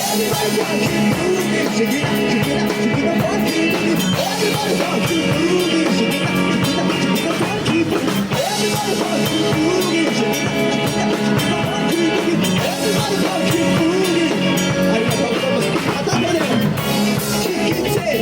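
Live band music: a rock-style song with drum kit and a wavering lead melody line over a steady backing, playing continuously between lyric lines.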